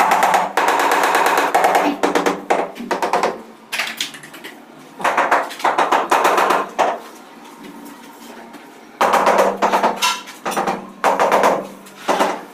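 A person's voice talking in bursts with short pauses between phrases, with a long pause in the middle.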